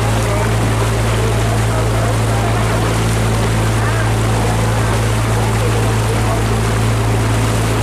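Steady low boat-engine drone with an even rush of water and wind over it, unchanging throughout.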